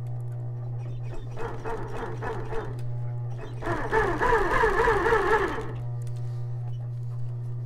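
Industrial sewing machine stitching leather, running in two spells, the second longer and louder, its whir wavering in pitch as the speed changes, over the motor's steady hum.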